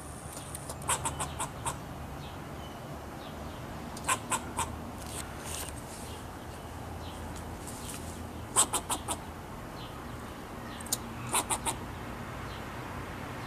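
Fox squirrel scolding with short, sharp alarm barks in quick runs of three to five, four runs a few seconds apart.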